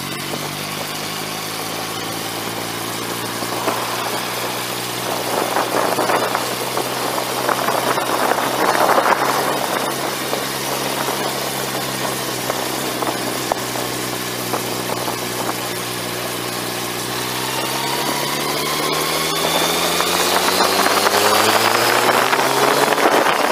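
Yamaha R1's inline-four engine running at a steady low speed, with a few seconds of rushing wind noise in the middle. Over the last few seconds the engine climbs steadily in pitch as the bike accelerates.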